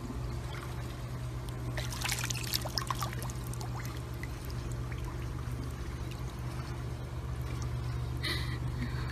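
Swimming-pool water splashing and trickling as a dog paddles in it, with a crackly burst of splashing about two seconds in, over a steady low hum.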